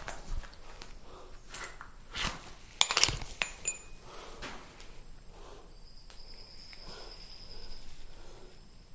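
Clicks, knocks and clinks of handling a handheld camera and flashlight as the light is switched on, loudest in a short cluster about three seconds in. A faint, steady, high-pitched whine comes in for a second or two later on.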